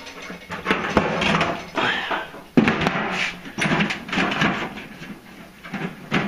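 Rummaging and clattering as items are pulled from a garage shelf, with scattered knocks and one sharp knock about two and a half seconds in, mixed with the rustle of a handheld camera being moved.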